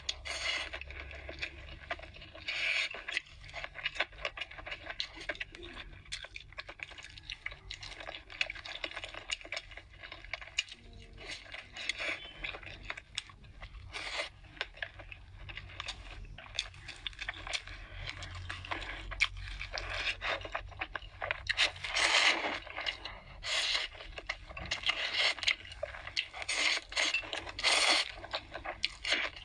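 Close-up eating sounds of spicy hotpot with instant noodles: wet chewing and slurping of noodles, with many short clicks and scrapes of chopsticks in the dish, and a few louder slurps near the end.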